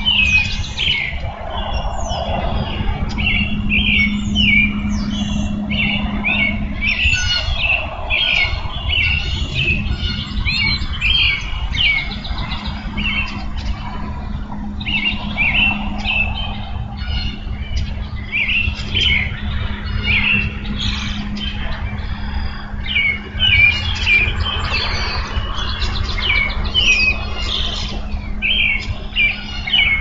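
Songbirds singing in a dense, overlapping chorus of short chirps and trills, over a steady low hum.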